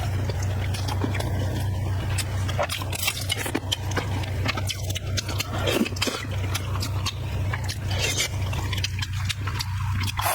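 Close-up eating sounds: a person chewing and biting food, with many short wet clicks and crackles, over a steady low hum.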